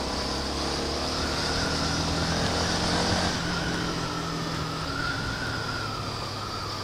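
Honda CB Twister 250F's single-cylinder 250 cc engine running steadily as the motorcycle rides along, with wind noise. A faint high tone wavers slowly up and down over it.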